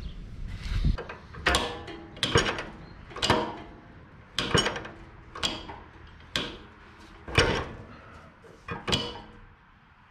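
Sharp mechanical clicks and clunks, about one a second, nine or so in all, from metal parts being worked by hand.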